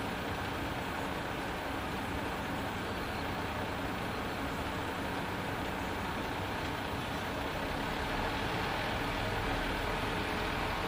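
Steady urban road traffic noise, a continuous rumble and hiss of passing vehicles, growing slightly louder near the end.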